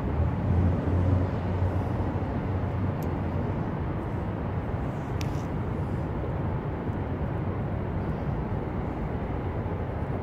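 Steady low rumble of distant vehicle noise, a little stronger in the first two seconds, with a couple of faint clicks.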